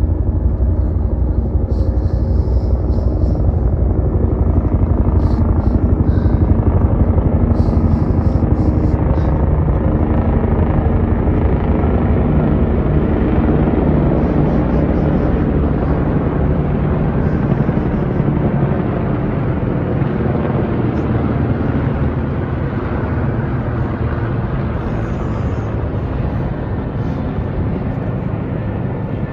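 Several helicopters flying overhead in formation: a steady, loud beat of rotors and engines that is loudest in the first several seconds, then slowly fades as they pass.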